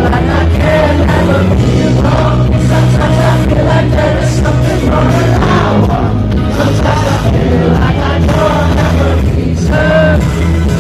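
Pop-rock band music playing loudly, with a singing voice over bass and drums.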